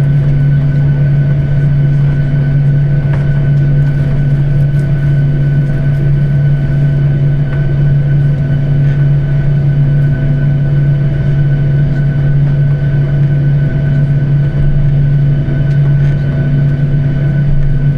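Steady drone inside an airliner cabin: jet engines and airflow hum evenly with a few constant higher tones, unchanging throughout.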